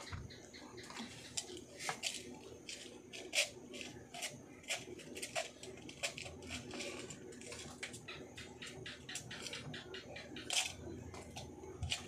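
Small refrigerator compressor running with a faint steady hum while refrigerant is charged in, with irregular light clicks and taps scattered throughout.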